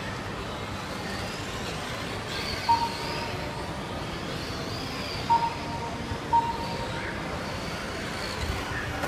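Radio-controlled race cars' motors whining high, rising and falling as the cars speed around the track, over a steady hall hubbub. Three short beeps sound a few seconds apart.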